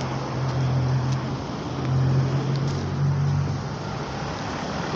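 Road traffic: a vehicle engine's low hum that fades a little after a second in and comes back about two seconds in, over steady road noise.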